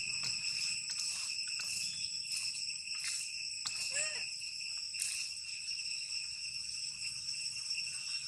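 Steady, high-pitched insect drone, one unbroken ringing tone, with a few faint ticks over it.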